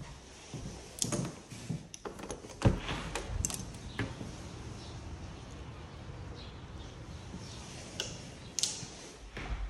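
A door being unlatched and swung open: a series of sharp clicks and knocks in the first few seconds, then a steady hiss of background noise, with another sharp click near the end.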